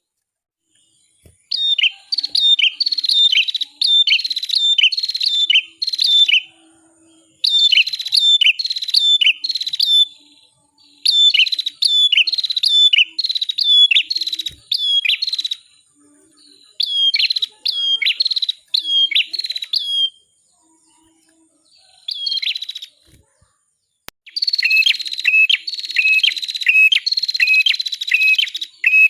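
Red-headed prenjak (cimblek kepala merah) singing: runs of sharp, repeated falling chirps, about three a second, in phrases of a few seconds broken by short pauses.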